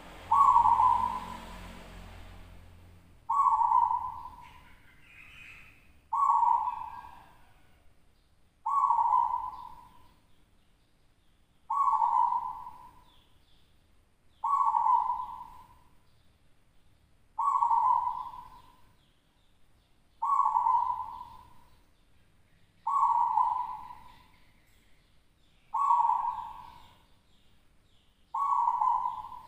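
Caged zebra dove (perkutut lokal) singing its cooing song. A phrase comes about every three seconds, eleven times, each starting sharply and trailing off.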